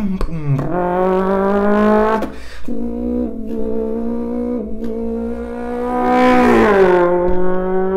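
A man's voice imitating an inline-four car engine: a held, engine-like note that climbs slightly and breaks off about two seconds in, then settles into a steady drone before swelling loudest around six seconds in and sweeping down in pitch, like a rev falling back.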